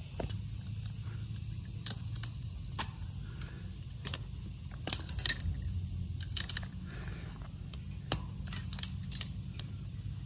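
Metal clinks and scrapes as a wire T-post clip is hooked around a steel T-post and twisted tight onto woven wire fencing with a hand clip-bender tool. The sharp clicks come in a cluster about halfway through and another near the end.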